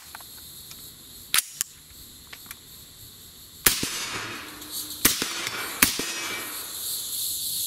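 Three suppressed shots from a semi-automatic AR-15 in 6.5 Grendel (.264 LBC): the second comes about a second and a half after the first, the third under a second later. The action cycles each round without a malfunction on the H2 buffer and blue spring. Before the shots, two sharp clicks come from the rifle being loaded, and insects buzz steadily behind.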